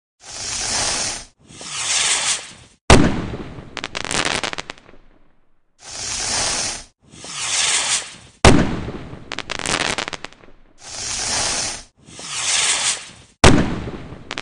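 Fireworks sound effect from the Quiver augmented-reality colouring app, playing three times over. Each time, two rushing hisses of rockets going up are followed by a sharp bang and a fading crackle, repeating about every five and a half seconds.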